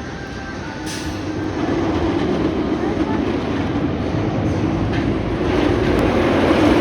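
Wildcat's Revenge, a steel-and-wood hybrid roller coaster, with a test train running along the track: a loud, rumbling roar of wheels on rail that builds as the train nears and peaks near the end.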